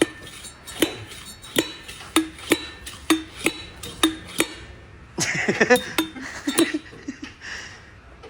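Metal parts clinking against each other: sharp single clinks about two a second, then a brief rattling clatter about five seconds in.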